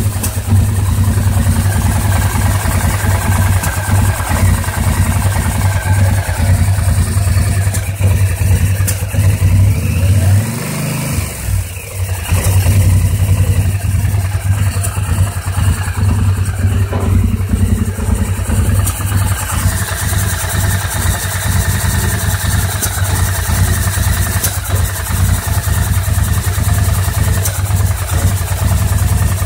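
2009 Polaris Sportsman 850 XP ATV's twin-cylinder engine idling rough and uneven with a miss. About ten seconds in it stumbles, its pitch sagging and the sound dropping as if about to stall, then it picks back up.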